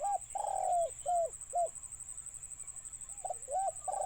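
A decoy dove cooing to call in wild doves: a phrase of about five short arched coos at the start, the second coo longer, then a second such phrase starting about three seconds in.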